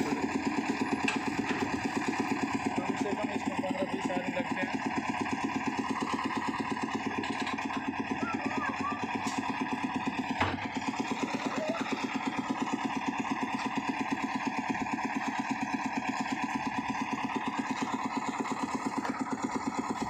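Engine-driven drum concrete mixer running steadily, the engine beating with a fast, even pulse as the drum turns. A single sharp knock about ten seconds in.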